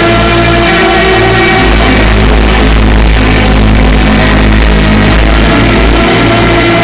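Trance music from a DJ set, played loud over a club sound system, with sustained deep bass notes and held chords.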